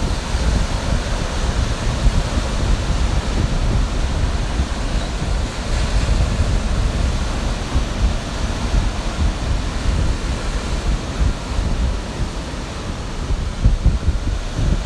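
Ocean waves washing onto a beach, a steady surf hiss, with wind buffeting the microphone in irregular low gusts.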